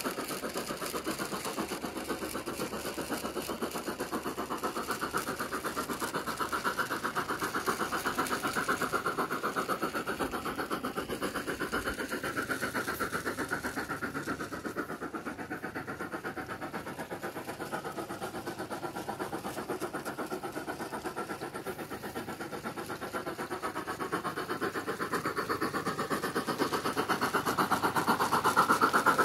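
Piko BR 24 G-scale model steam locomotive running under battery radio control, its MyLocosound sound card playing a steady, fast steam chuff. It is fainter around the middle and grows louder near the end as the locomotive comes close.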